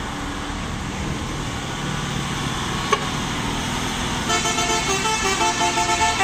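Diesel engine of a Hino tanker truck running under load as it climbs a hill, then, about four seconds in, a multi-tone 'telolet' musical horn starts up and plays a quick tune of stepped notes, louder than the engine.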